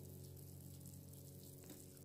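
Faint bubbling and fizzing of soto broth simmering in a pan, under soft background music with steady held notes, and a small tick near the end.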